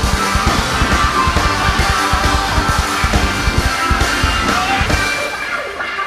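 Rock music with a steady drum beat; the drums and bass drop out about five seconds in, leaving the higher parts.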